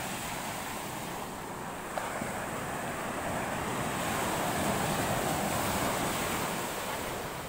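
Small ocean waves breaking and washing up a sandy beach, the surf growing louder about halfway through, with wind buffeting the microphone.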